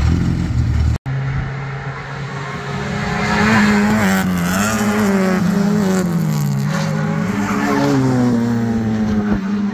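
A Yugo race car idles for about a second, then the sound cuts abruptly. After the cut, a race car engine revs hard on the circuit, its pitch climbing and dropping again and again with throttle and gear changes.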